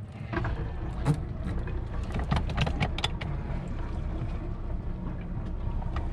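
Charter boat's engine running low and steady, with water and wind noise, and a cluster of sharp clicks and knocks in the first three seconds.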